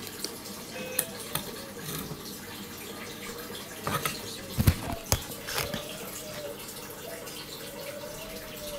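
Metal detector handled and switched on: a few sharp clicks and knocks of the plastic control box in the hand, the loudest about halfway through, over a steady hiss. A faint wavering tone runs through the second half.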